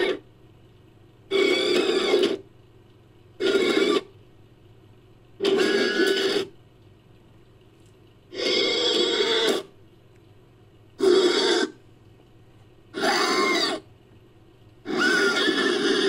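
Made-up monster creature calls pieced together from man-bat and ape-man sound effects: a string of about seven separate pitched calls, each lasting under a second to just over a second, with about a second of quiet between them.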